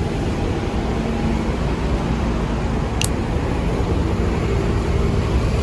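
Steady vehicle noise, with a brief sharp click about three seconds in.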